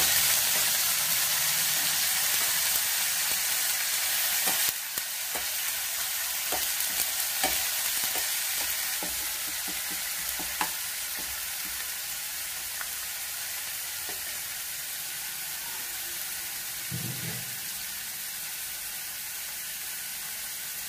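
Ginger-garlic paste sizzling in hot oil in a pan, fried until its raw smell goes, while a spoon stirs it with scattered scraping clicks against the pan. The sizzle drops suddenly about five seconds in and carries on more softly.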